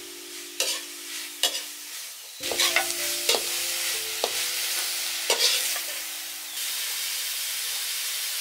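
Beef and lolot leaves sizzling in a hot wok while a metal skimmer scrapes and clanks against the pan, with several sharp knocks over the first five seconds. The stirring then stops and the food goes on sizzling steadily.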